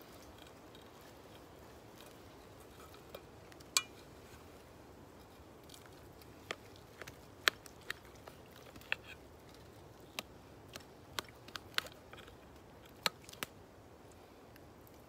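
A knife clicking and scraping against a plate while cutting through a thick cooked steak: a dozen or so sharp, irregular clicks over a faint steady hiss.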